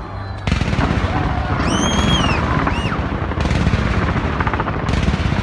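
Fireworks from a skyscraper display going off in a dense, rapid volley of bangs and crackling pops. About two seconds in, a brief high whistling tone rises and falls over the crackle.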